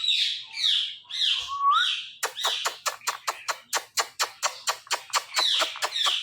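Indian ringneck parrot calling: a few harsh, falling squawks, then from about two seconds in a fast run of short, repeated chattering notes, about six a second, with another harsh squawk near the end.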